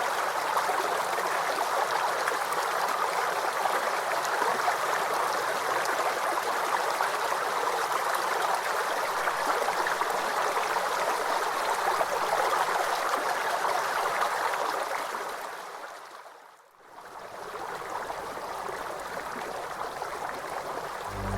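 River water flowing, a steady rushing noise. About three-quarters of the way through it fades out almost to silence, then comes back somewhat quieter.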